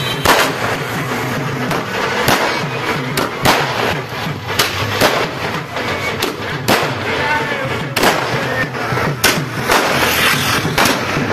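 Fireworks going off in an irregular string of sharp bangs, more than one a second, with music playing underneath.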